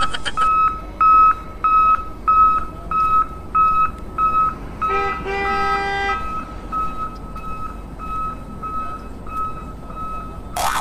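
Electronic reversing-style beeping: one high tone pulsing on and off about twice a second. About five seconds in, a fuller horn-like tone sounds for about a second, and the beeps then carry on more faintly.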